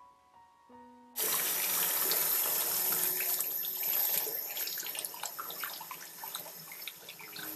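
Faint music notes, then about a second in a tap's running water starts abruptly and splashes into a bathroom sink as hands are rubbed and rinsed under the stream.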